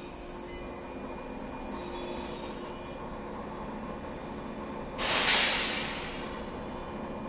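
485-series Resort Yamadori train's wheels squealing high-pitched as it creeps along the track; the squeal swells and then dies away about three and a half seconds in. About five seconds in comes a sudden loud hiss of air that fades over a second or so.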